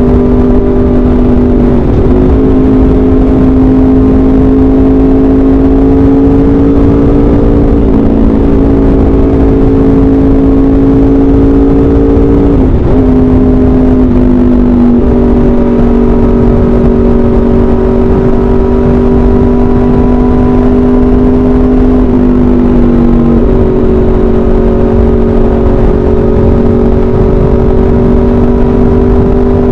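Aprilia RSV4 RF's V4 engine through an SC-Project CRT exhaust, cruising at a steady pitch under wind noise on the microphone. A few times the engine note briefly dips and resettles at a slightly different pitch.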